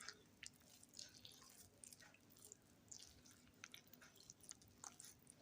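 Near silence with faint, scattered wet clicks of a spatula stirring milk into thick chocolate cake batter.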